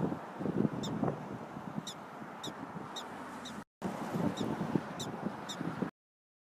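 Prairie dog calling: short, high barking chirps every half second to a second over lower, rougher calls, breaking off shortly before the end.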